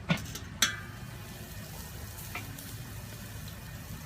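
Pork spare ribs sizzling on a hot grill, with a few sharp clicks, two close together near the start and one about halfway.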